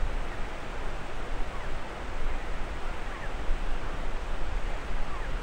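Outdoor wind noise on the microphone: a steady low rumble and hiss that swells and dips, with a few faint short chirps.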